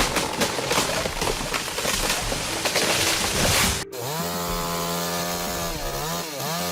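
A dense crackling, rushing noise that grows brighter and cuts off abruptly about four seconds in. Then a two-stroke chainsaw engine runs, its pitch rising at first, then holding steady, and dropping briefly twice near the end.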